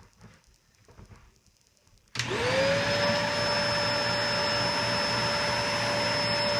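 Eureka Optima upright vacuum cleaner switched on about two seconds in: the motor spins up with a rising whine, then runs steadily with a loud airy rush and a constant high whine.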